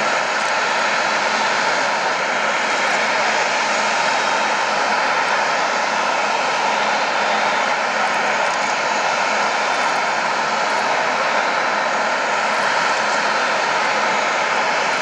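Airbus A380's four jet engines running at low taxi thrust: a steady, even jet noise with a faint constant whine and no change in level.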